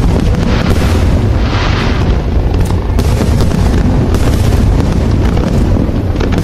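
Aerial fireworks shells bursting in quick succession: a dense run of booms and bangs over a continuous low rumble, with a short hissing stretch about a second and a half in.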